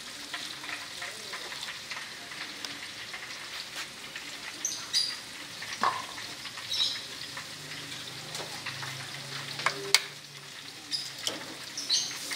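Leafy greens sizzling steadily in hot oil in a steel wok. A few sharp knocks and short high squeaks sound over the sizzle, the loudest knock about ten seconds in.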